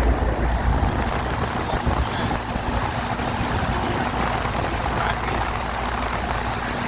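Rooftop HVAC unit running with a new condenser fan motor: a steady rush of fan air over a faint constant hum, with low rumble in the first couple of seconds.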